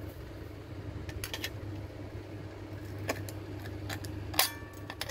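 Aviation snips cutting sheet steel: a few sharp clicks of the blades closing, the loudest about four and a half seconds in with a brief metallic ring from the sheet, over a steady low background hum.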